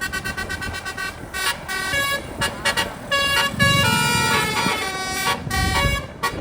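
Indonesian bus 'telolet' multi-trumpet air horn playing a tune: a run of short notes, then longer held notes stepping between pitches.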